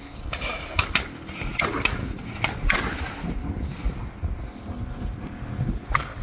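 Chesapeake Bay retriever splashing as it wades out of shallow water carrying a retrieved duck, a quick run of sharp splashes in the first few seconds, then quieter rustling as it runs through long grass.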